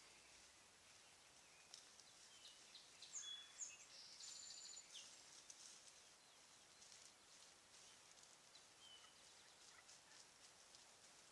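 Faint bird calls in quiet woods: scattered high chirps and short falling notes, with a quick burst of calls and a fast trill about three to five seconds in.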